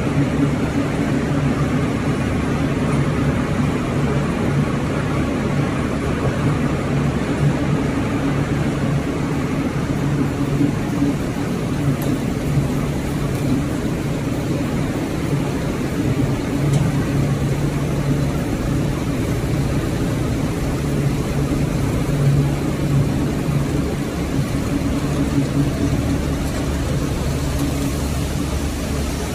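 Machinery of a hot-dip galvanized wire production line running: a steady drone with a low hum.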